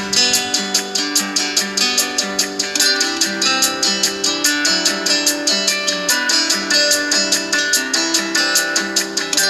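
LG V20 alarm tone: a tune on a plucked string instrument, played with strums in a quick, even rhythm.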